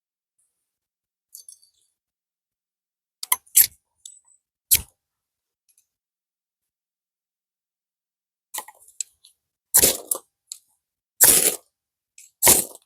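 Short, sharp scrapes and clicks from the attempts to light a cotton-and-Vaseline campfire tinder. A few faint clicks come first, then, after a quiet stretch, louder scrapes follow about a second apart near the end.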